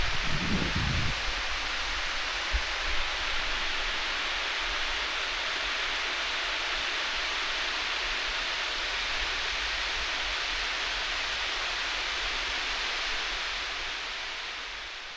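Steady rushing of water pouring over the Derwent Dam's spillway, fading out near the end, with a brief low bump at the start.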